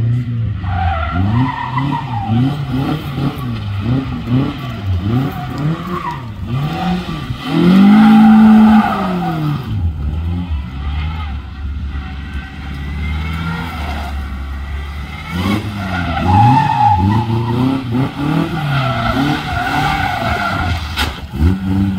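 Vauxhall Nova hatchback's engine revving up and down again and again as it is thrown around a tight coned course, with tyres squealing at times. About eight seconds in it is held at high revs for about a second, the loudest moment.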